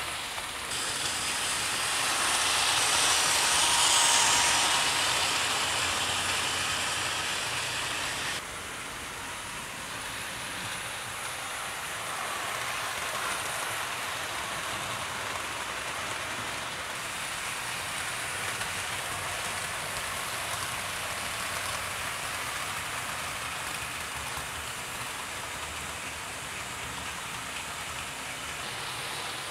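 00 gauge model trains running on the layout: a steady whirring rush of small electric motors and wheels on the track. It swells to its loudest about four seconds in, then drops suddenly to a quieter, even level.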